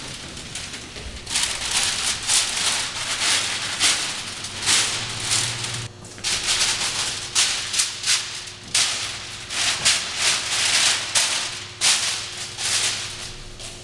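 Rustling, rattling noise in irregular bursts, like something being shaken or brushed.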